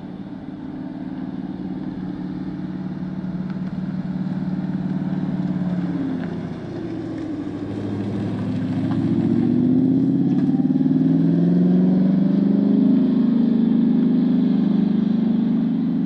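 Ford Mustang GTD's supercharged 5.2-litre V8 at speed on a race track. Its engine note holds steady, dips briefly about six seconds in, then rises and grows louder as the car accelerates hard, loudest in the second half.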